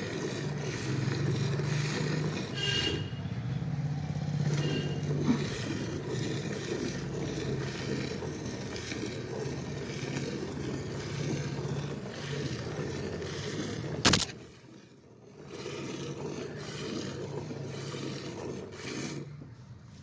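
A buffalo being hand-milked: streams of milk squirting repeatedly into a steel bucket, with a single sharp click about fourteen seconds in.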